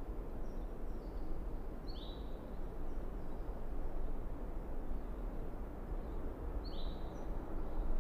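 Steady outdoor background noise with a low rumble, over which a small bird gives a few short, high chirps, the clearest about two seconds in and again near the end.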